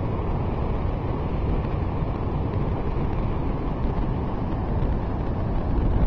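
Wind buffeting the microphone with a low, steady rumble, over the continuous wash of rough post-typhoon surf on the beach.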